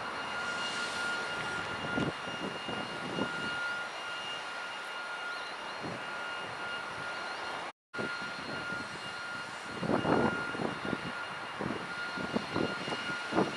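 Steady mechanical drone with a constant high-pitched whine running through it. The sound cuts out completely for a moment about eight seconds in, and a few irregular thumps come near the end.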